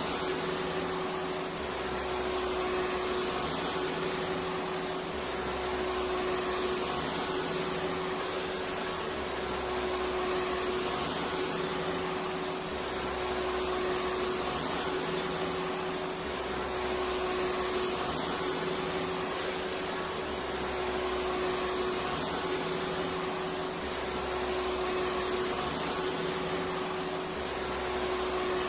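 Electric vacuum cleaner running steadily, an even rushing noise with a constant motor hum and a faint high whine. A low throb rises and falls about every two and a half seconds.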